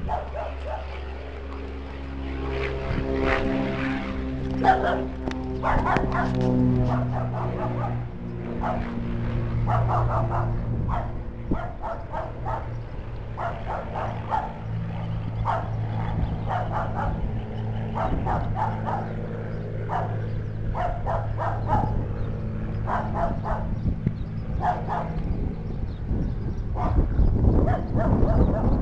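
A crop-duster airplane's propeller engine passing, its pitch falling slowly over the first several seconds, then a bus's engine running steadily close by, louder near the end. Runs of short, sharp animal calls repeat throughout.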